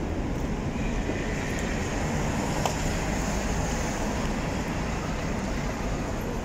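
Steady low rumble of outdoor urban background noise, with a small click near the middle.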